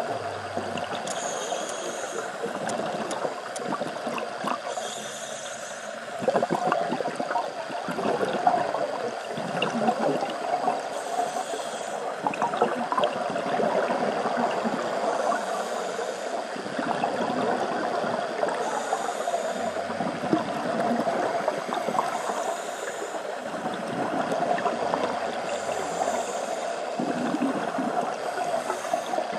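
Scuba regulator breathing underwater: a short hiss with each inhalation every few seconds, and a steady gurgle and crackle of exhaled bubbles.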